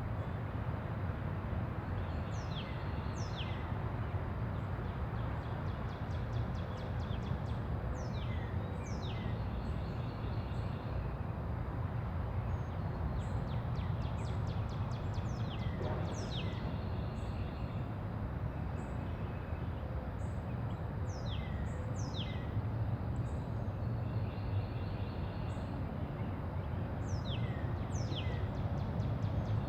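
Quiet residential-neighbourhood ambience: a steady low rumble of distant traffic, with a bird giving a pair of quick falling calls about every six seconds and faint rapid high ticking between them.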